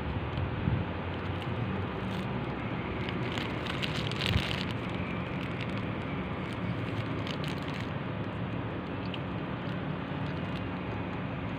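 Steady outdoor background hiss with a low hum under it, and a few faint clicks and a brief rustle about four seconds in.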